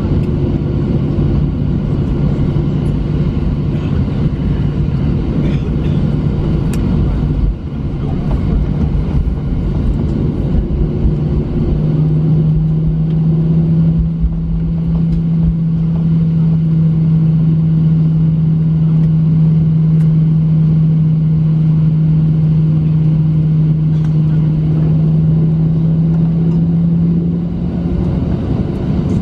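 Cabin noise of a Boeing 737-900 taxiing, with its CFM56-7B jet engines running at low taxi power: a steady rumble with a low hum that steps up slightly in pitch about twelve seconds in and stops near the end.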